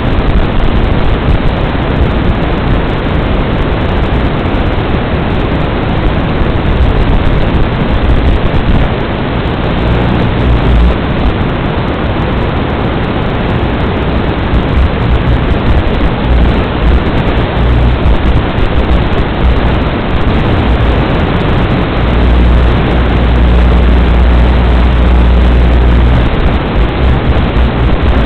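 Loud, steady hiss of static on the analog FPV video link's audio channel, with a low rumble swelling at times and strongest a few seconds before the end.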